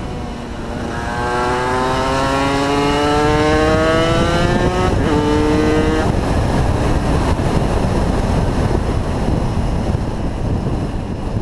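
Yamaha TZR250 3XV two-stroke V-twin engine pulling up through the revs. Its note rises for about four seconds, drops at a gear change about five seconds in, and then gives way to steady wind rush as the bike rides on.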